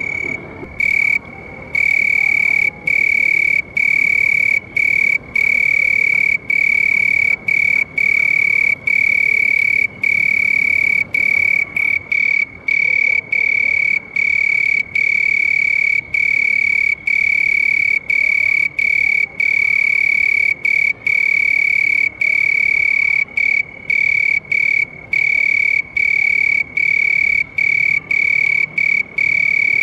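Cricket chirping: a loud, steady, high-pitched trill broken by brief pauses about every second.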